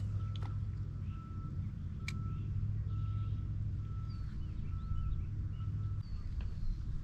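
Pond-side outdoor ambience: a steady low rumble underneath, with a bird repeating a short high note more than once a second and a few fainter chirps. A single sharp tick comes about two seconds in.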